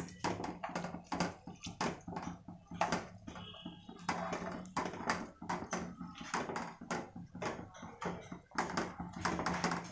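Black plastic spatula stirring vermicelli and vegetables through hot water in a dark nonstick pot. The strokes make irregular soft scrapes and knocks against the pan, several a second.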